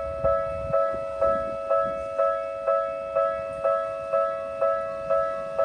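Japanese railway level-crossing warning bell ringing: a steady electronic two-tone ding about twice a second, the signal that a train is approaching and the barriers are down.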